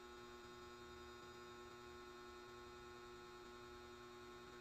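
Near silence with a steady, faint electrical mains hum: room tone.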